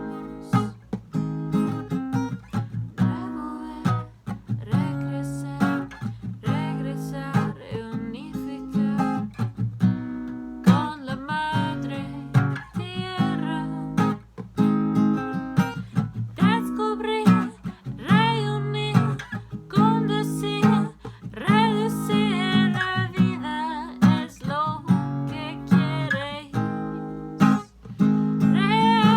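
Acoustic guitar strummed in a steady rhythm, accompanying a singing voice in a solo acoustic song.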